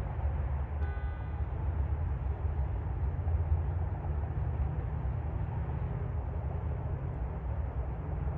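Interstate highway traffic: a steady low rumble of passing cars and semi trucks. About a second in, a brief faint pitched tone sounds over it.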